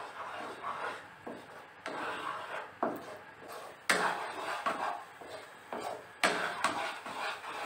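Flat spatula scraping and stirring a thick, sticky milk-powder mithai mixture around a nonstick kadhai in repeated strokes. The mixture is being cooked down on low flame until thick. Two sharper knocks stand out, about 4 s and 6 s in.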